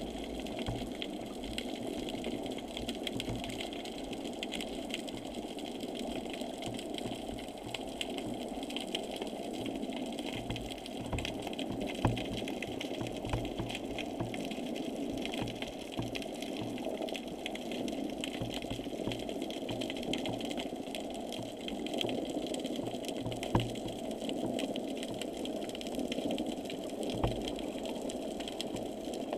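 Underwater noise heard through a camera's waterproof housing: a steady muffled hiss and rumble, broken by irregular low knocks and scattered sharp clicks.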